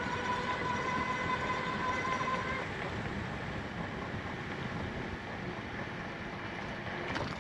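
Wind and riding noise buffeting the microphone of a moving bicycle. A steady high-pitched tone with overtones sounds over it and stops about two and a half seconds in.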